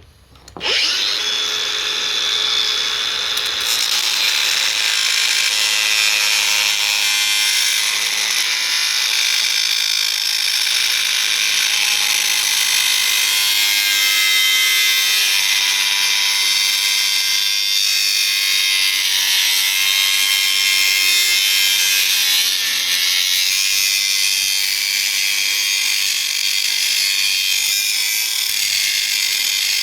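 Angle grinder starting up about a second in and cutting steadily through the brass body of an old water meter, a loud, high-pitched grinding.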